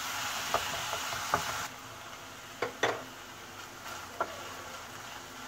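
Minced meat sizzling in a frying pan as a spatula stirs it, with sharp taps and scrapes of the spatula against the pan. The sizzle drops away abruptly about a second and a half in, leaving only a few spatula scrapes.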